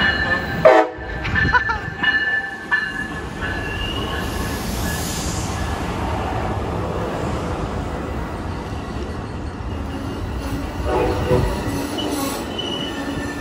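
Amtrak Coast Starlight passenger train, a Charger locomotive followed by bi-level Superliner cars, rolling past close along the platform as it pulls in, wheels and brakes squealing over the steady rumble of the cars. A sharp knock sounds under a second in.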